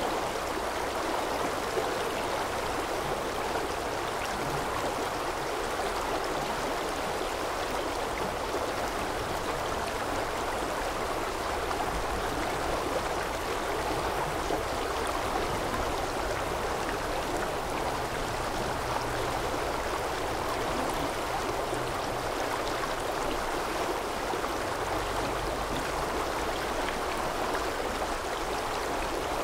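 A rushing stream: flowing water making a steady, even rush with no breaks.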